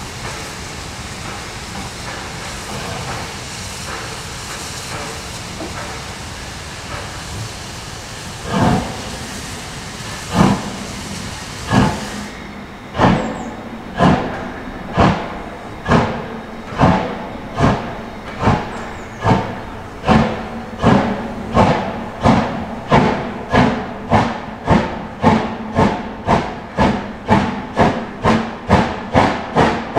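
Metre-gauge steam locomotive pulling away: a steady hiss of steam, then exhaust chuffs that start about a third of the way in, slow at first and quickening to about two a second as the train gathers speed.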